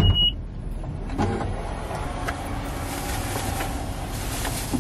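Steady outdoor traffic and air noise with a sharp knock at the very start and a few faint clicks.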